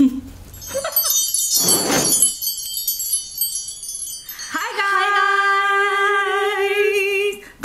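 Channel intro sting: a sparkling shimmer of chimes with a whoosh about two seconds in. From about four and a half seconds in comes one long held note with a slight wobble.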